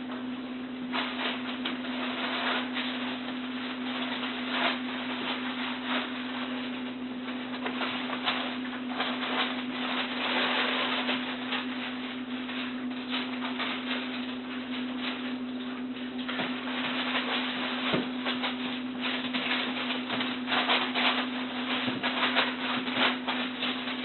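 Golden retriever puppies playing and scuffling, their paws and claws scrabbling and tapping irregularly on the floor, over a steady low hum.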